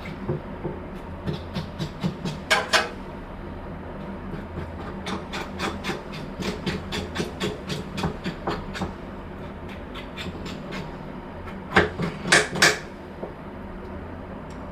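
A knife scrapes scalded goat trotters clean in quick, repeated strokes. A few louder scrapes come about two and a half seconds in, and a cluster of three comes near twelve seconds, over a steady low hum.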